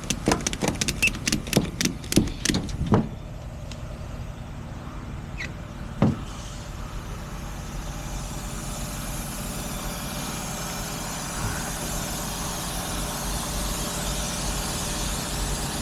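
A quick run of sharp clicks, several a second, for about three seconds, then a truck engine running steadily, with a single knock about six seconds in.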